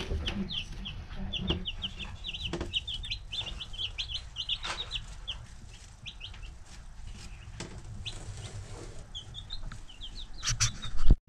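Young chicks peeping: many short, high, slightly falling cheeps, several a second, over a low rumble. A few loud sharp knocks come near the end.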